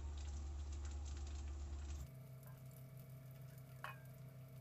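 A spoon pouring warm sugar syrup over a crisp, porous ghewar: faint pattering and light clicks of the steel spoon, over a steady low hum that shifts in pitch about two seconds in.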